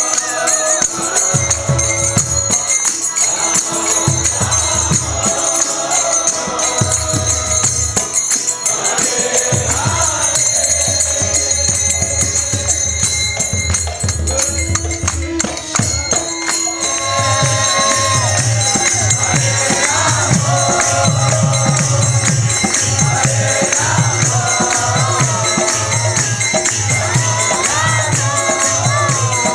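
Live kirtan: a group of voices chanting over two-headed mridanga drums and a steady jingle of small hand cymbals. A little past halfway the drumming becomes denser and more even and the whole sound gets louder.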